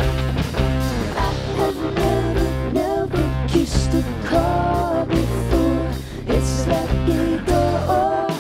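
Live rock music: electric guitar over a steady beat, with a woman singing.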